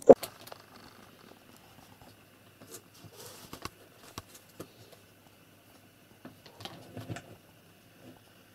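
Cats moving about on a desk: soft scattered taps, scratches and rustles from their paws, with a sharp click at the very start.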